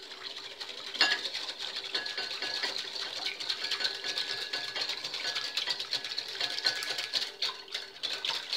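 Wire whisk beating gelatin dissolved in hot water in a glass bowl: a fast, steady rattling and clinking of the wires against the glass, starting with a sharp clink about a second in.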